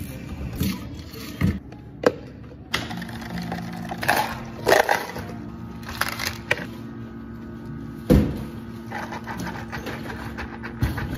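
Drink-making at a café counter: plastic cups set down, ice scooped with a metal scoop clattering into plastic cups, then blended strawberry juice poured from a blender jug. A steady low hum runs underneath the knocks and clatter.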